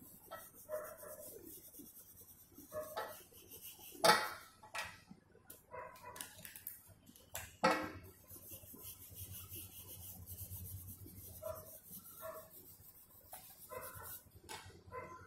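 An oil pastel scratching across drawing paper in quick, short strokes. Two sharp knocks stand out, one about four seconds in and another a few seconds later.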